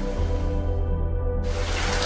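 Slow, calm background music with long held notes and a deep bass tone, over a recorded rain hiss that fades away about half a second in and cuts back in abruptly about a second and a half in.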